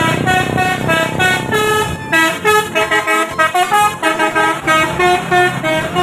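Bus telolet horn, a Basuri-type multi-tone air horn, playing a quick melody of short notes stepping up and down in pitch, over road noise.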